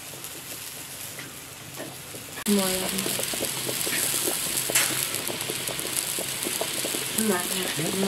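Chicken and onion slices boiling hard in water in a wide kazan over a wood fire: a steady bubbling hiss that jumps much louder about two and a half seconds in, with a few faint crackles of the fire before that.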